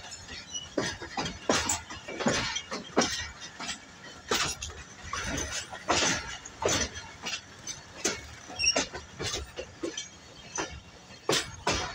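Passenger train wheels clattering over rail joints and points at slow speed: irregular sharp clicks and knocks, several a second.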